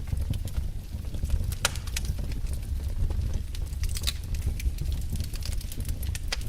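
Wood fire burning in a fireplace: a steady low rumble of the flames with frequent sharp crackles and pops.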